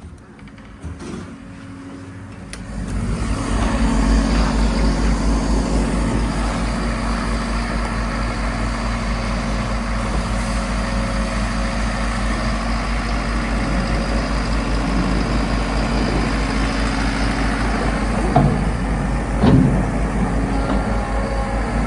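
Volvo MC115C skid steer's diesel engine running steadily with an even low throb, coming in loud about two and a half seconds in. A couple of knocks near the end.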